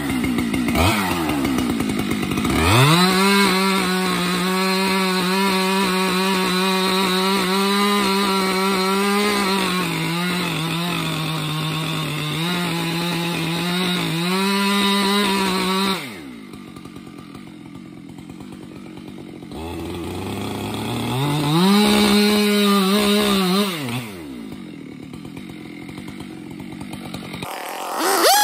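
Gas chainsaw revving up and running at full throttle as it makes the back cut through an oak trunk, its pitch sagging a little at times under load. About 16 seconds in it drops to idle, then revs up again for a couple of seconds and falls back to idle.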